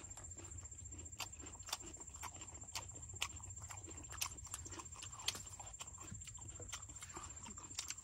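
Faint, irregular lip smacks and mouth clicks, about one or two a second, from people whose mouths are burning from chili, over a low steady rumble.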